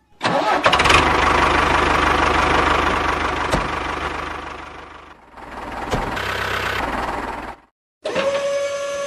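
A small motor or engine running with a dense, fast-rattling buzz. It starts suddenly, dies down about five seconds in, picks up again, then cuts off abruptly near the end.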